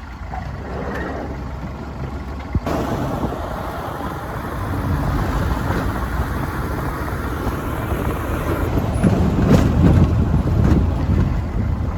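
A road vehicle driving along with a steady rumble of engine and road noise. There is a single sharp knock about two and a half seconds in, and the rumble grows louder near the end.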